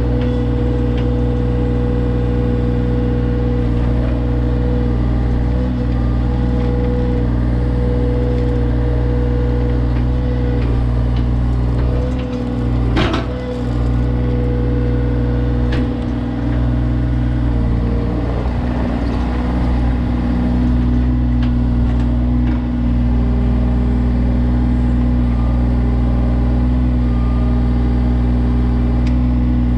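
John Deere 35G mini excavator's diesel engine running steadily under hydraulic work, with one sharp clank about 13 seconds in and a change in the engine note about 18 seconds in.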